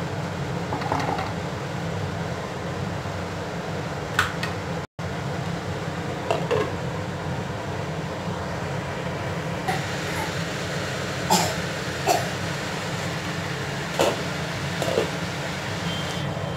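A steady low hum under the simmering of a pan of vermicelli upma, with about eight short sharp knocks and clinks of cookware scattered through.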